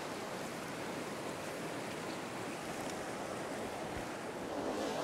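A small stream running, a steady even rush of water that grows a little louder near the end.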